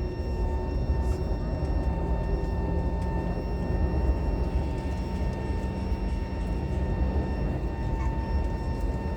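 Airliner cabin noise: a steady low rumble with thin, constant whining tones from the aircraft's engines and systems.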